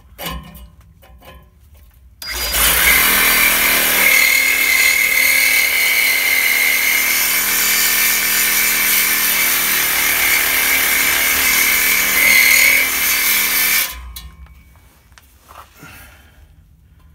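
Hilti cordless reciprocating saw with a Lenox Gold blade cutting through a crimped-on exhaust pipe. It starts about two seconds in, runs steadily for about twelve seconds with a high whine from the blade in the metal, and then stops.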